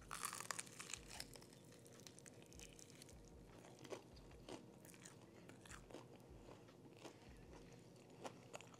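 A bite into crispy fried chicken: a crunch of the breading about the first second, then quiet chewing with small crackles scattered through.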